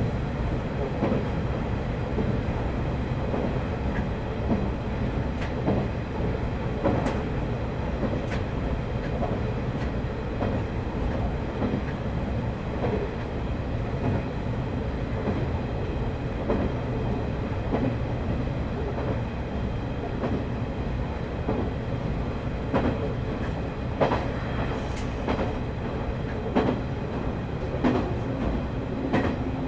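Diesel railcar running along the line: a steady low rumble with scattered clicks and knocks of the wheels over rail joints. A steady hum comes in near the end.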